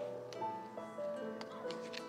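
Music: a melody of held notes that moves from one note to the next about every half second.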